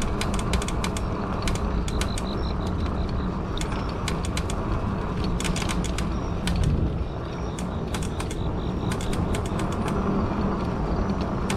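A modded fat-tire e-bike rolling along: a steady low rumble of tyres and wind, with irregular clicks and creaks from the bike, some coming in quick clusters. Its direct-drive motor adds no gear noise.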